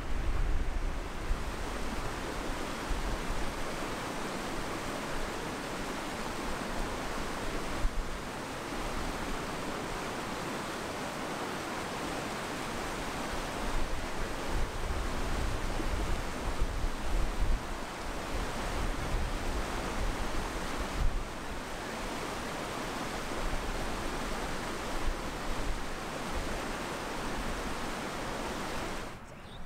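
Steady rushing of a mountain stream over rocks, with gusts of wind buffeting the microphone at times.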